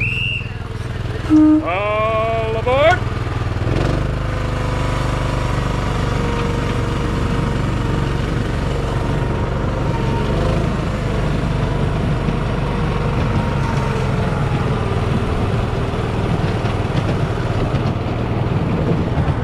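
Miniature ride-on railway train running along its track with riders aboard: a steady low rumble of the train and wheels on the rails. In the first three seconds there are a few short pitched sounds, a brief high tone, a short low toot and a rising cry.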